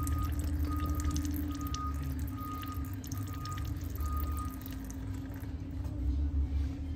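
A steady electrical hum under a short high electronic beep repeating about every 0.8 s, about six beeps, stopping about four and a half seconds in, with faint clicks of a hex key working the brake caliper's bleeder screw.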